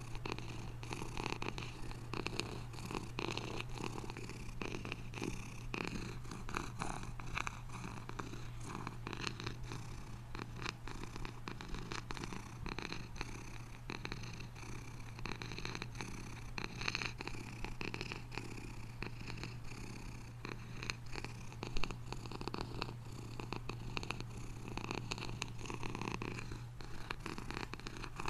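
A domestic cat purring continuously, a steady low rumble, with one brief click about two-thirds of the way through.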